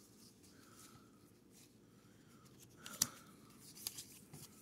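Faint rustle of a stack of baseball cards being slid from one hand to the other, card edges scraping past each other. There is a sharper card flick about three seconds in and a smaller one near four seconds.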